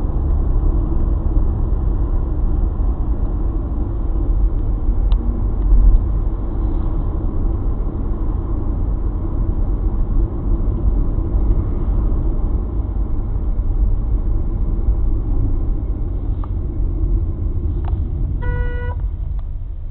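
Steady low rumble of a car driving, engine and tyre noise heard from inside the cabin through a dashcam's microphone. A short beep sounds briefly near the end.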